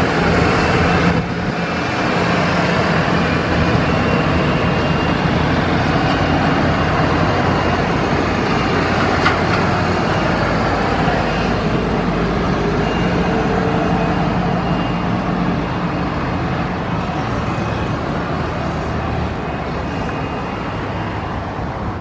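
Twin rear-mounted Rolls-Royce AE 3007 turbofans of an Embraer 145-family jet running at taxi power as the aircraft rolls past. A steady jet whine sits over a rumble and slowly fades near the end.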